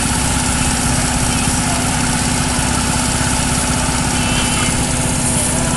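An engine running steadily at idle, with a dense, even low rumble.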